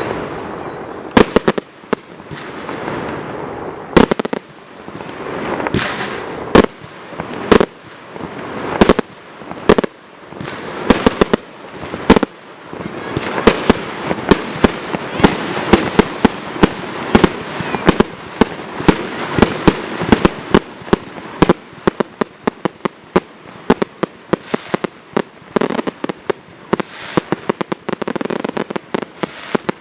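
Fireworks display: aerial shells bursting with sharp bangs a second or two apart, each with a noisy wash between. From about halfway through, the reports come thick and fast as a rapid string of bangs.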